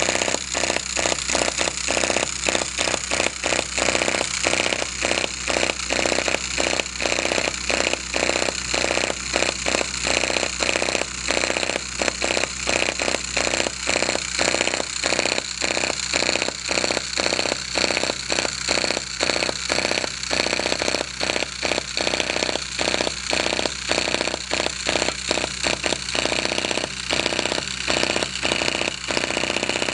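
Miniature air-cooled hit-and-miss engine (3/8 in bore, 1/2 in stroke, spark ignition, gasoline and two-stroke oil fuel) running fast: a rapid, uneven string of firing pops with frequent short gaps, as its hit-and-miss mechanism lets it coast between firings to hold its speed.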